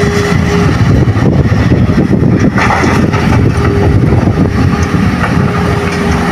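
Hitachi hydraulic excavator's diesel engine running hard under load as it digs and swings a bucket of soil, the engine note getting heavier about a second in.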